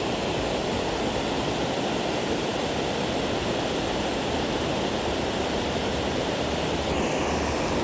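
Steady rush of water pouring over a dam, an even noise with no breaks.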